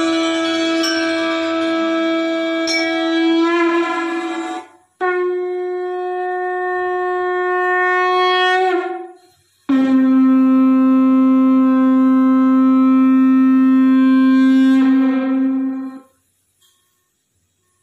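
Roland XPS-10 keyboard playing a woodwind-like voice: three long held notes with short breaks between them. The second is a little higher than the first and the third is lower, and the last stops about sixteen seconds in.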